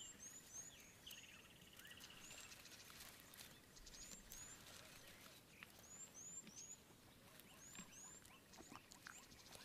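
Faint bush ambience: small birds chirping, short high calls often in pairs and repeated every second or so, with a brief trill about a second in and a few faint clicks.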